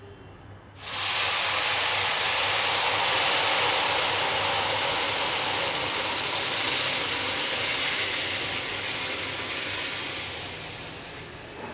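Warm sugar syrup poured into semolina roasted in hot ghee, sizzling and bubbling. The hiss starts abruptly about a second in, holds steady, and fades toward the end.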